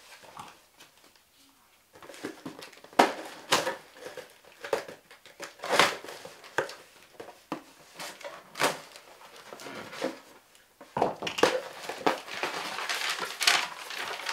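Cardboard shipping box being handled and cut open: after a short quiet, scattered knocks and scrapes as the packing tape is slit. For the last few seconds there is a dense rustle and crinkle as the flaps open and paper is pulled out.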